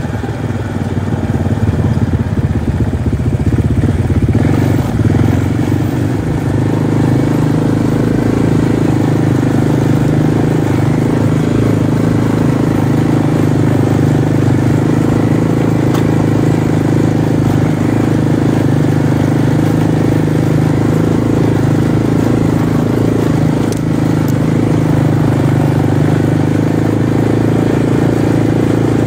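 Off-road vehicle engine pulling away and picking up speed over the first few seconds, then running steadily at a cruise.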